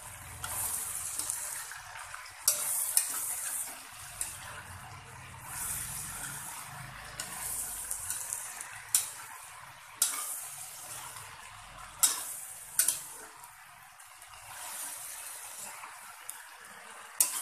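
Colocasia (taro) leaves and stems being stir-fried with chicken in a wok: a sizzle that swells and fades as the greens are turned, with sharp knocks of the spatula against the pan every few seconds.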